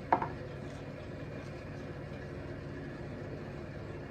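A single sharp clink of a spoon against a mixing bowl just after the start, over a steady low hum.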